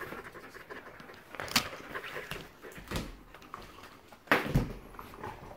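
Dogs' claws clicking and tapping on a tiled floor as huskies shift about, with a heavier thump about four and a half seconds in.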